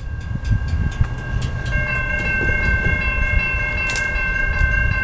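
Railroad grade-crossing warning bell ringing in quick, even strikes as the signal activates, with steady high ringing tones joining about two seconds in, over a low rumble.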